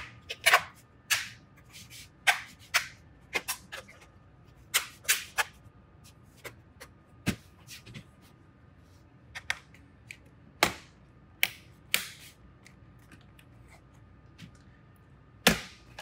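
The plastic snap clips of an HP Pavilion 15-bs212wm laptop case click into place one after another as fingers press down along its edges. There are about twenty sharp clicks at irregular intervals, with a louder knock near the end as the laptop is turned over.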